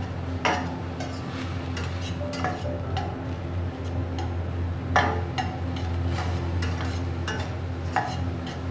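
A metal spatula stirring ground meat in a stainless steel pot, scraping and knocking against the pan, with sharper knocks about half a second, five seconds and eight seconds in. A steady low hum runs underneath.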